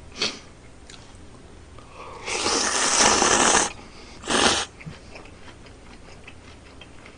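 Cold noodles (jaengban-guksu) slurped off chopsticks: one long, loud slurp of about a second and a half, then a second short slurp a moment later.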